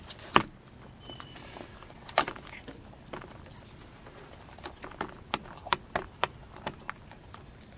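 Hens pecking oatmeal from a shallow dish, their beaks striking it in sharp, irregular taps. The taps come quicker in a run in the second half.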